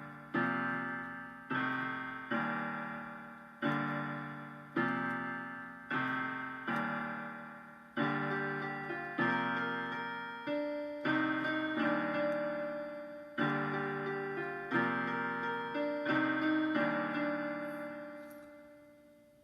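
Piano playing the closing chords of a song, a chord struck about once a second and each left to ring and decay; the final chord fades away near the end.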